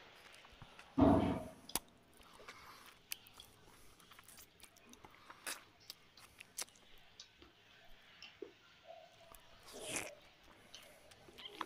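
Close mouth sounds of a man chewing rice and fish curry eaten by hand, with many small wet clicks and smacks. A louder thud comes about a second in.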